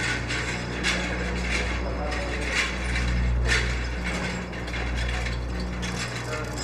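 Irregular mechanical clicking and rattling over a low, held music drone that shifts pitch every second or two.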